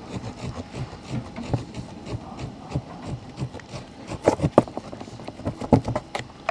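Bondo body filler being mixed with its hardener: a mixing tool scraping and tapping against the mixing surface in a quick, irregular run of clicks, with a few louder knocks a little past the middle.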